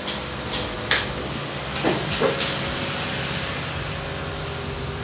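Steady mechanical hum with a hiss, like a running fan, with a few short clicks and knocks about a second in and again around two seconds in.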